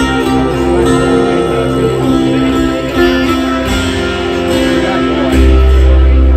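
Acoustic guitar being strummed in a live one-man-band performance, and about five seconds in a deep, steady didgeridoo drone comes in strongly underneath.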